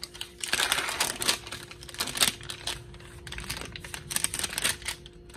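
Gauze packet being opened: the paper wrapper crinkling and rustling in irregular bursts, dying away near the end.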